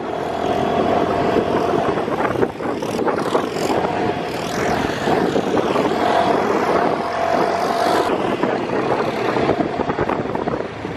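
Engine of an open side-by-side off-road buggy running as it drives along a rough dirt track, with a faint steady whine that comes and goes.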